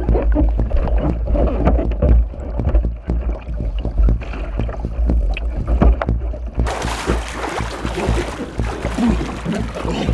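Muffled underwater churning and bubbling as swimmers thrash beneath a capsized kayak. About two-thirds of the way in it changes suddenly to open splashing and sloshing water at the surface around the overturned hull.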